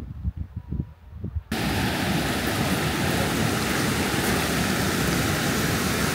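Low, uneven rumbling for about a second and a half, then a sudden cut to the loud, steady rush of a waterfall.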